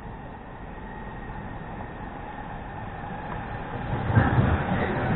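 Southeastern Class 395 high-speed electric train approaching along the platform, growing steadily louder. About four seconds in, as it draws level, a heavy rumble of wheels on rail and a whine set in.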